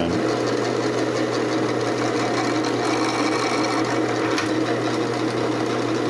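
Bench drill press running steadily, with a constant motor hum, as a small bit bores a pilot hole through a wooden dowel.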